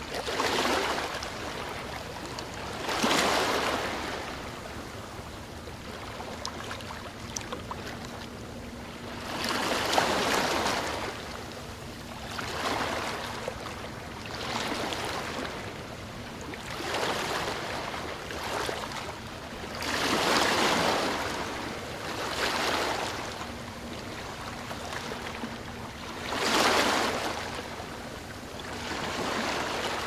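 Waves breaking and washing up a shore: a swell of surf every few seconds, with a quieter hiss of water between.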